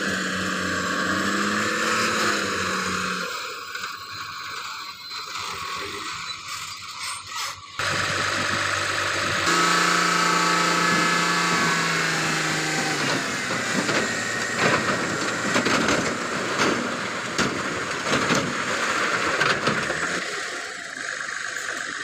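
Tata tipper truck's diesel engine running, revving up midway as the hydraulic hoist raises the loaded body, with scattered knocks and rattles as the rock and earth slide out of the tipping body.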